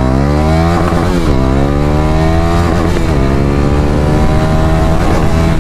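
KTM Duke 390's single-cylinder engine under hard acceleration, its pitch climbing in each gear. It drops back at upshifts about a second in and about three seconds in, then climbs more slowly, with another shift near the end.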